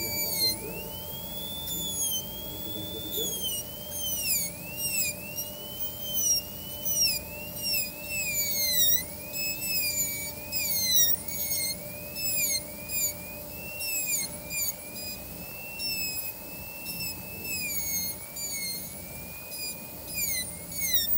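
High-speed dental air-turbine handpiece with a tapered diamond bur cutting a typodont tooth during an abutment (crown) preparation. It gives a high whine whose pitch dips and comes back up over and over, each dip as the bur is pressed against the tooth wall.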